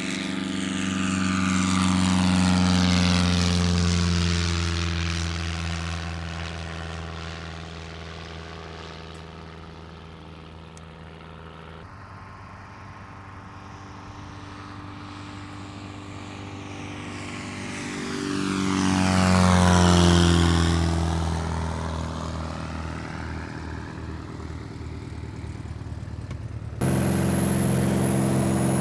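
Small propeller airplanes taking off past the microphone: the engine drone swells and fades twice, dropping in pitch as each plane goes by, the second pass the loudest. Near the end it cuts abruptly to the steady engine noise heard inside a small plane's cabin.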